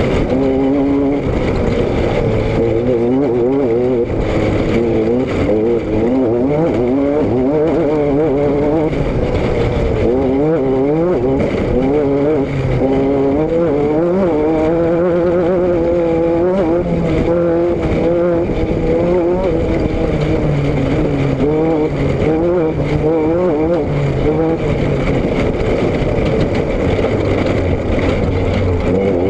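Car engine and exhaust running on the road, heard from a camera mounted at the rear. The engine note rises and falls over and over as the car speeds up and eases off, over steady road and wind noise.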